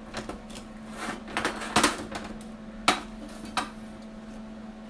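Steel fabrication pieces being handled and set in place: a few sharp metal clanks and knocks, spaced irregularly, over a steady low hum.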